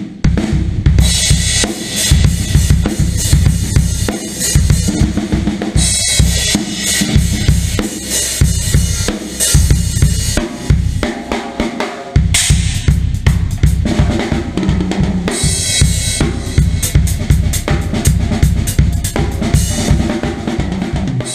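Drum kit played in a continuous groove of bass drum, snare and cymbals, with stretches of bright cymbal wash that come and go.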